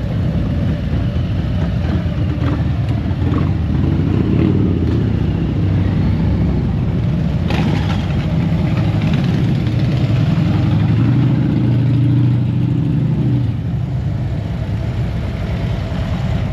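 Motorcycle engines rumbling and revving as bikes ride past, a dense low throb that is loudest through the middle and eases off a little near the end.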